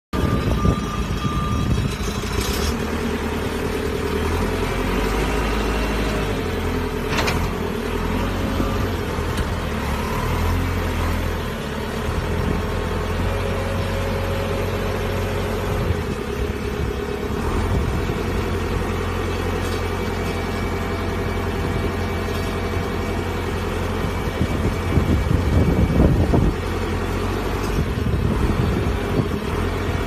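JCB 4CX backhoe loader's diesel engine running steadily, growing louder for a couple of seconds near the end.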